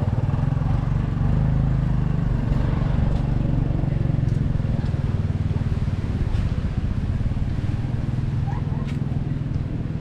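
An engine running steadily with a low drone, louder in the first half.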